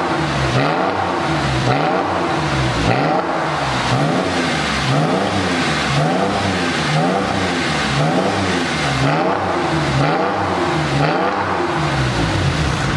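Porsche 996 flat-six revved over and over in quick blips through a DesignTek sports exhaust with headers, replacement catalytic converters and a Valvetronic switchable muffler. The valve is open, then closed about halfway through, then open again near the end.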